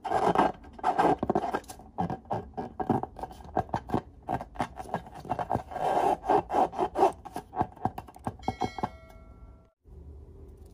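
Fingers squeezing and rubbing a filled rubber balloon: a quick run of short rubbing strokes, skin dragging on taut rubber. The strokes stop near the end, where a brief ringing tone sounds.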